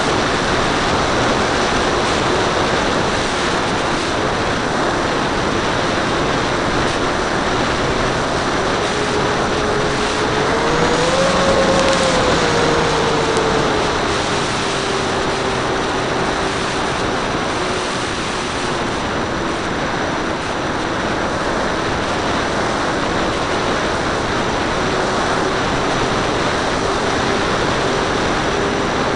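Wind rushing over the onboard camera of a radio-controlled P-38 model plane in flight, with the thin whine of its electric motors underneath. The whine rises in pitch about ten seconds in, then falls back and holds steady.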